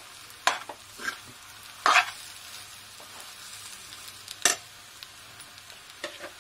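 Steel spoon scraping and knocking against a metal kadhai while stirring and mashing spiced boiled potatoes for a kachori filling. It comes in a handful of separate strokes, the loudest about two seconds in and again about four and a half seconds in, over a faint steady sizzle of the potatoes frying dry in very little oil.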